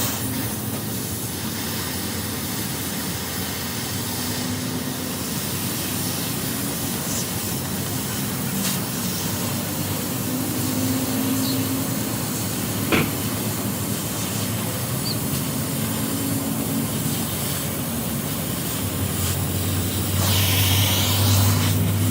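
Steady roadside vehicle noise with a hiss, a single sharp click about 13 seconds in, and a vehicle passing close near the end, adding a low hum and a sweeping hiss.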